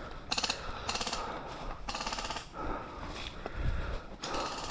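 Short bursts of rapid airsoft rifle fire, about four bursts of quick clicking shots, each lasting well under a second.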